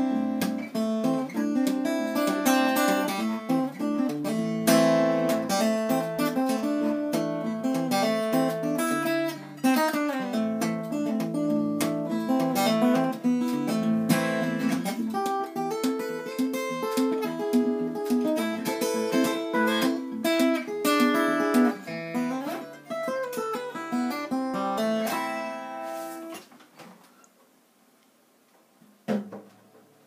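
Acoustic guitar played with picked notes and strummed chords, ringing out and stopping about 26 seconds in, followed by a quiet pause with a single knock near the end.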